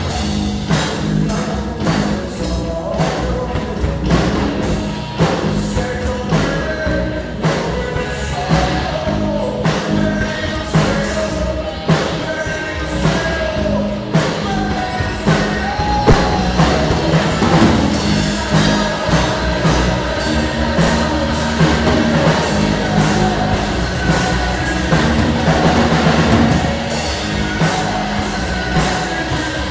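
Loud rock-style music with a drum kit and a singing voice.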